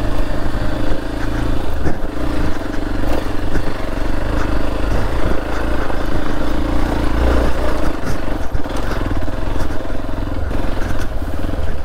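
Hero Xpulse 200 motorcycle's single-cylinder engine running steadily while riding, with wind noise and scattered knocks on the camera microphone.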